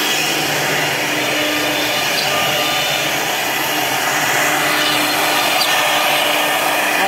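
CNC router spindle running steadily with a 4 mm bit, drilling a pattern of small holes into a plywood sheet.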